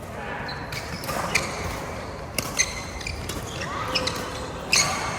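Badminton rally: rackets striking the shuttlecock in several sharp, crisp hits, the loudest near the end, with shoes squeaking on the court floor in between.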